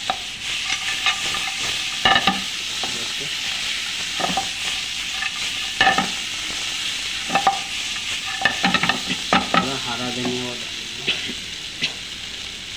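Chicken strips and cashews in masala sizzling in a non-stick frying pan while a wooden spatula stirs and scrapes them. The spatula knocks against the pan several times over the steady sizzle.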